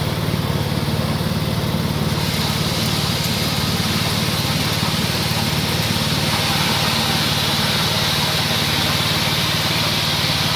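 Pellet crumbler machine running steadily with a low, even hum, and a higher hiss joining about two seconds in.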